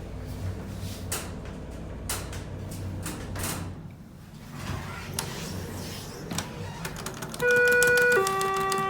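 Schindler HT330A elevator car travelling, with a low hum and a few clicks and rattles. It then sounds its two-note falling arrival chime, a higher tone followed by a lower one, signalling that the car has reached the floor and is set to go down.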